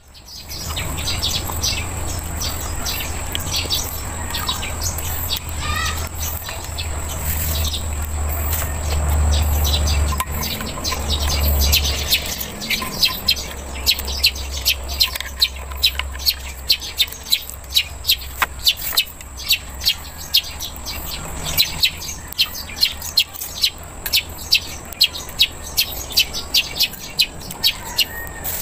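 Birds chirping, with short chirps repeating about twice a second through the second half. A steady high tone is under them throughout, and there is a low rumble in the first half.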